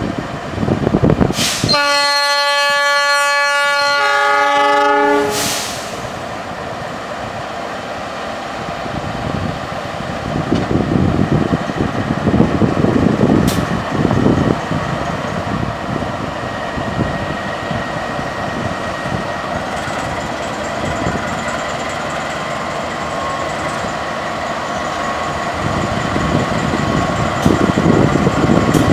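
Horn of a train hauled by three GE CM20EMP (CC206) diesel locomotives in triple traction, sounding one long chord of several tones for about three and a half seconds, starting about two seconds in. Then comes a steady rumble of the diesel engines and the train on the rails, swelling as the locomotives draw close near the end.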